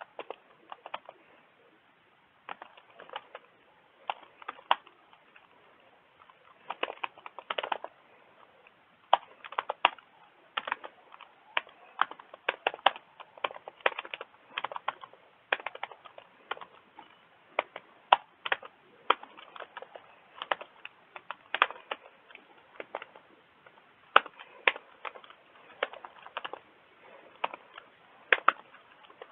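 Typing on a computer keyboard: irregular keystroke clicks in short runs, with brief pauses between them.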